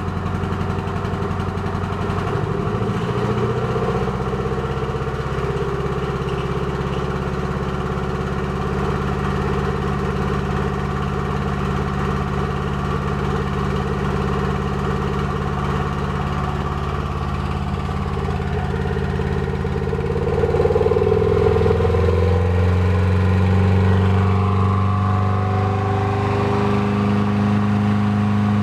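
Toyota MR2 engine running steadily, its speed stepping up a little a few seconds in and rising again twice in the second half; the owner suspects a misfire.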